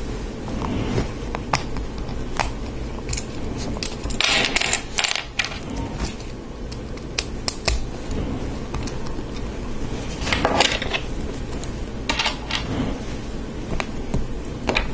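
Lego Technic plastic parts clicking and rattling as they are handled and pins are pushed into lift arms: scattered sharp clicks, with two longer rattles about four seconds in and about ten seconds in.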